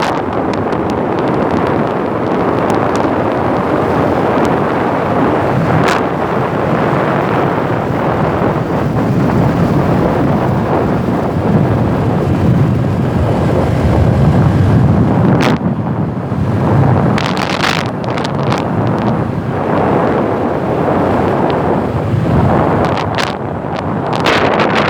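Wind buffeting the microphone: a loud, steady low rushing rumble that swells about halfway through, with a few brief sharp knocks and crackles.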